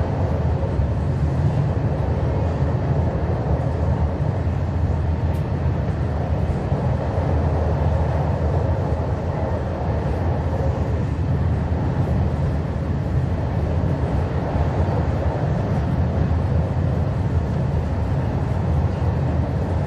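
Passenger train running, heard from inside the carriage: a steady low rumble of wheels on rails and running noise.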